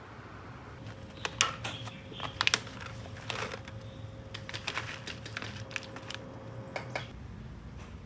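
A packet of ground coffee being handled, crinkling and clicking in irregular bursts, some sharp and loud. A faint steady hum runs underneath.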